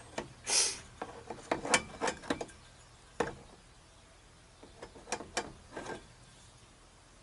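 Small metal parts of a model boat's live-steam engine being handled and worked loose inside its wooden hull: a short scrape about half a second in, then a run of light clicks and taps, a pause, and a few more clicks.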